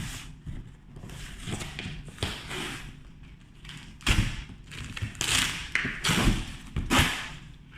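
A parcel being handled and opened by hand: thumps and taps, with several loud bursts of rustling packaging about four to seven seconds in.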